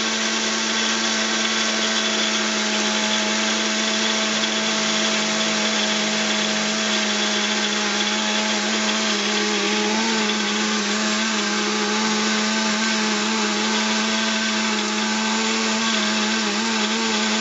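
Electric coffee grinder set to espresso grind, running steadily as it grinds clay cat-litter granules into powder: a steady motor whine with grinding noise over it.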